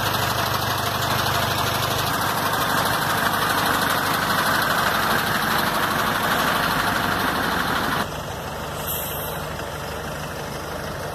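A vehicle engine running steadily, with a dense noisy hum. It drops sharply to a quieter level about eight seconds in.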